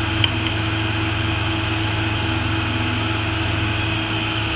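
Benchtop drill bit sharpener running with a steady hum while the drill, clamped in its chuck holder, is turned in the grinding port, with one light click just after the start.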